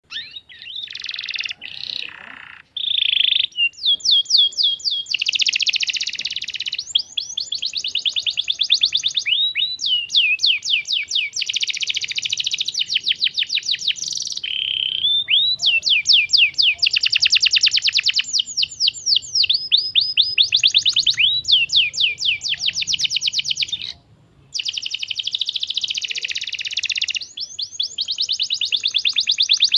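Domestic canary singing a long, loud song of fast trills: rolls of rapid, repeated high sweeping notes, broken by short pauses, with one brief silence about 24 seconds in. It is a 'pancingan' lure song meant to prompt young canaries to sing back.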